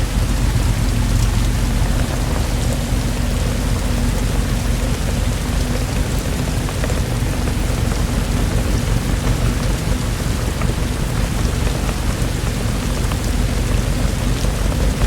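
Steady rain falling, an even hiss of drops with fine individual drop ticks over a constant low rumble.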